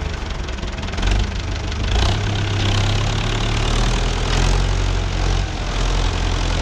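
Tractor engine running steadily, a low hum with small swells in loudness.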